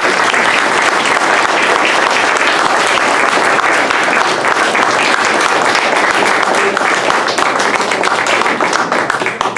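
Audience applauding: dense, even applause that begins abruptly and tails off near the end.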